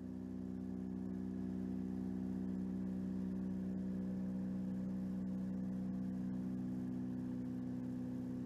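Sound effect of an airship's engines droning as it passes over: a steady hum of several low tones that swells slightly and begins to fade near the end.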